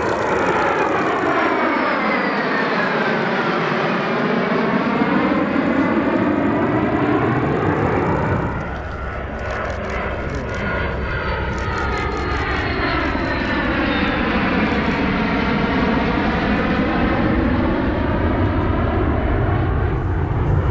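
Jet noise from a three-ship formation of F-2 fighters, each with a single turbofan, passing overhead, the sound sweeping in a whooshing phasing pattern as they go by. About eight seconds in the sound drops and a second formation pass of jets begins, with the same sweep and a faint high whine.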